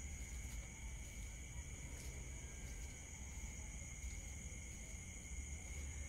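Crickets trilling steadily in an unbroken night insect chorus, with a low rumble underneath.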